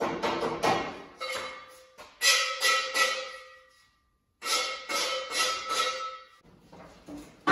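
Lengths of 2-inch steel square tubing clanking against metal, each knock ringing briefly. The knocks come in quick runs, with a short pause about four seconds in.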